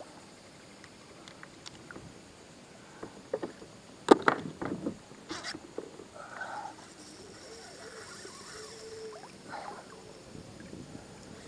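Knocks and clatter of fishing gear against a plastic fishing kayak as the rod is grabbed from its holder, a cluster of sharp knocks about three seconds in, the loudest about four seconds in.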